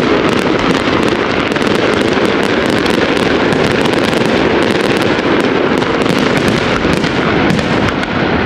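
Fireworks going off in a dense, continuous barrage of bangs and rapid crackling.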